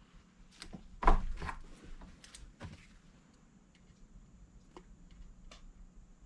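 A few light clicks and knocks of objects being handled, the loudest cluster about a second in, over a faint steady hum; no tool is running.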